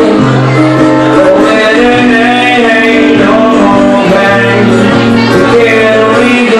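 Live solo acoustic guitar strummed steadily while a man sings, with held, drawn-out vocal notes.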